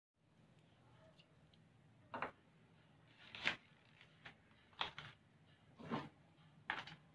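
Objects being handled and set down on a stone countertop: about six short knocks and scrapes, starting about two seconds in, over a faint steady hum.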